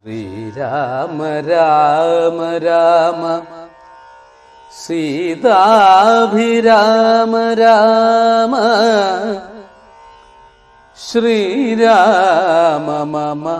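Carnatic-style intro music: three slow melodic phrases with wavering, ornamented pitch, separated by short pauses.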